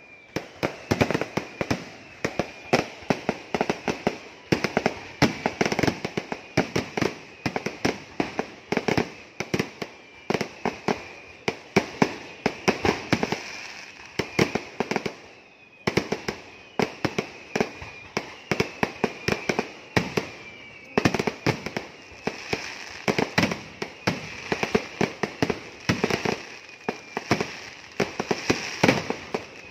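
A festival fireworks display: a dense, continuous volley of sharp bangs and crackles, several a second, with a high whistle running among them. There is a brief lull about halfway through.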